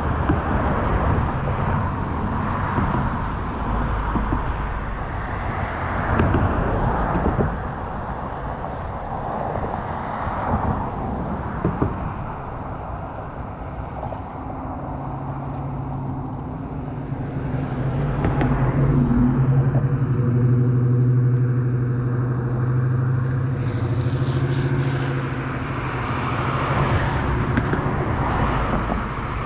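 A motor vehicle's engine running close by. A steady low engine note comes in about halfway through, is loudest a little past the middle and fades near the end, over rumbling outdoor noise.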